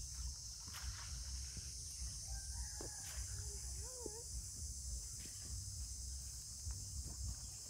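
Outdoor rural ambience: a steady high insect drone over a low, uneven rumble, with a faint distant call about three to four seconds in.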